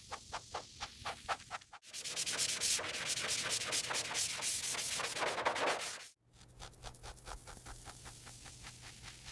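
Abrasive rubbing and sanding on a surface. It starts as quick, even strokes, about five a second, then turns into a few seconds of continuous loud rasping that cuts off suddenly. After that, softer rubbing strokes return over a low steady hum.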